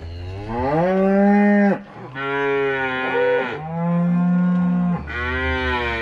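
Cattle mooing loudly: three long moos back to back, the first rising in pitch as it begins.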